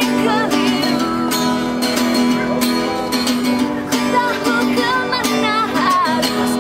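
Music: plucked guitar accompaniment over a held low note, with a wavering melody line on top.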